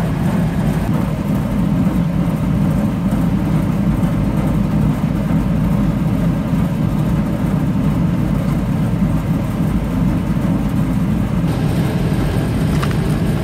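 Steady low rumble of running machinery, even in level throughout.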